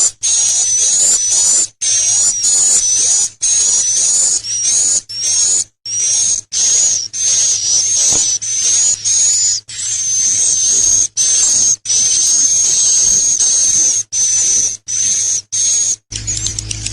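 Bird sold as an 'akau' singing: rapid, high, hissy chattering phrases with a thin whistled note on top. The phrases repeat one after another, each cut off by a short silence.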